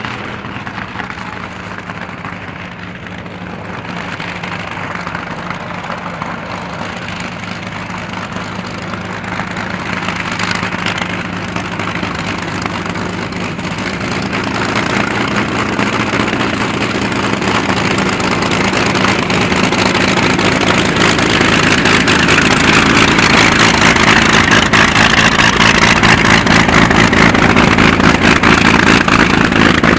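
Messerschmitt Bf 109 fighter's piston engine running at taxi power, a steady drone that grows gradually louder as the aircraft comes closer.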